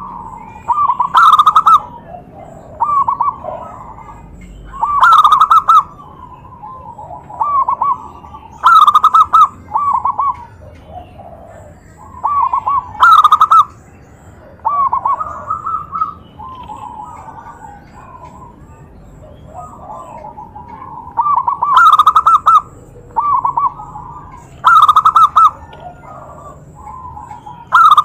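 Zebra dove (perkutut) cooing: quick runs of staccato coos, with a loud phrase about every four seconds and softer coos between. The loudest phrases hit full level and distort.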